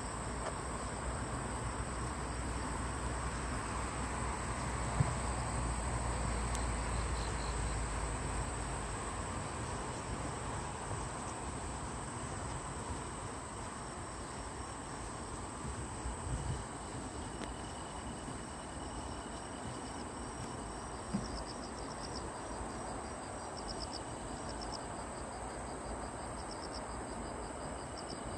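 Crickets and other night insects singing: a steady high trill, joined in the second half by a lower steady tone and, near the end, pulsed chirping. A low rumble fills the first several seconds, and a few soft knocks come through.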